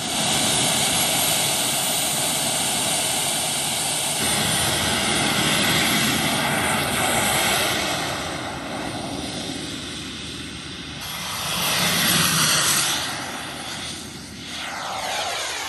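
A large radio-controlled model airplane's engine running at high power with a loud, steady rushing noise as it takes off and flies away. It fades a little about halfway through, swells again as the plane comes past about three-quarters of the way in, then drops off.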